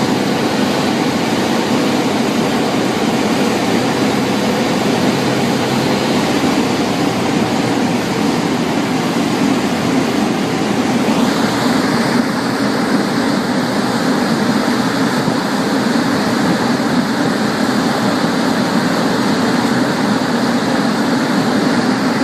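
G-Power-tuned BMW M5 driving at a steady pace: an even, loud din of engine and road noise with no revving. About eleven seconds in, the higher part of the sound shifts briefly.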